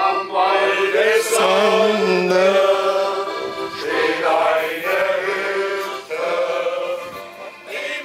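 Men's voices singing a slow song together, as a small men's choir, with short breaks between phrases about four and six seconds in.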